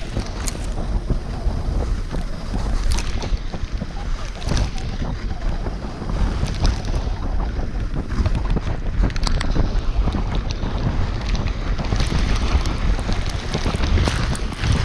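Wind rushing and buffeting on an action camera's microphone during a fast sled descent, with the sled's metal runners scraping and rattling over packed snow in frequent short scrapes and knocks.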